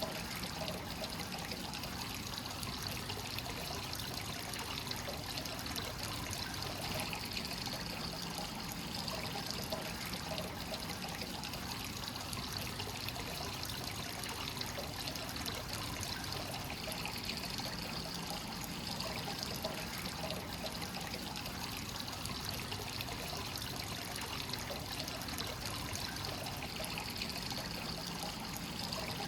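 Hot-spring water pouring steadily into a stone bath, a continuous trickling and splashing of the free-flowing source overflowing into the pool.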